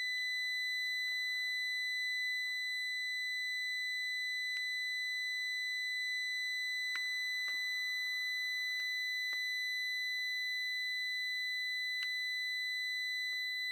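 Steady high-pitched electronic tone, about 2 kHz with fainter overtones above it, playing back through a MOTU UltraLite mk5 audio interface, with a few faint ticks.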